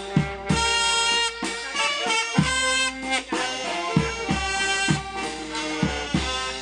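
Vietnamese funeral brass band playing: saxophones carry a melody of held notes over trumpet and tuba, with bass drum strikes.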